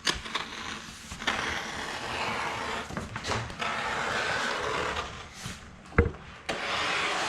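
Vinyl wrap film being cut with a knife: several long scraping strokes of a second or two each, with one sharp knock about six seconds in.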